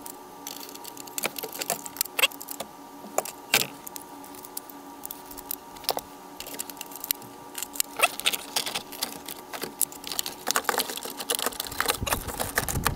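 Plastic center dash bezel and switch panel being handled and pressed into place: scattered clicks, taps and light rattles of plastic on plastic, coming more often near the end.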